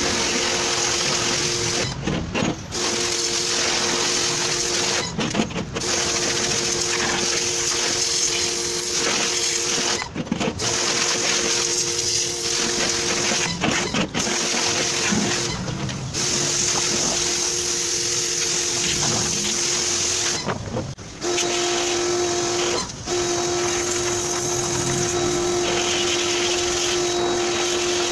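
Small electric pressure washer running, a steady motor hum under the hiss of its water jet, cutting out for a moment about seven times.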